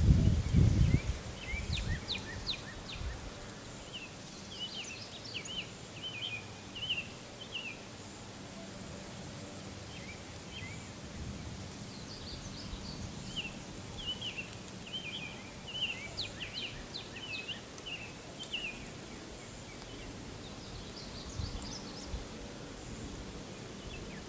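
Songbirds chirping in quick phrases of short high notes, coming in several bouts over a steady outdoor background. A brief low rumble at the very start.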